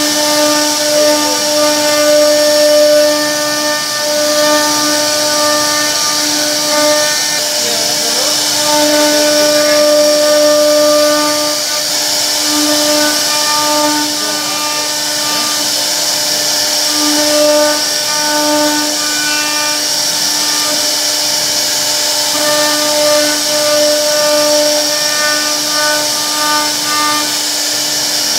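CNC router spindle carving a relief pattern into a solid wood door panel: a steady high whine over a constant hiss of cutting, with the pitched tone swelling and fading in irregular stretches as the bit works through the wood.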